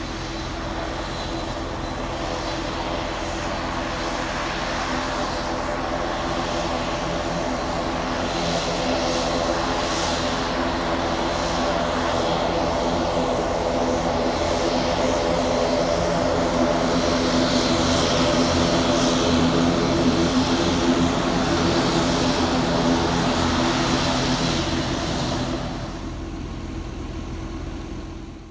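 ATR 72 turboprop airliner taxiing, its twin turboprop engines and propellers giving a steady hum with several held tones. The hum grows slowly louder as the plane comes nearer and falls away sharply near the end.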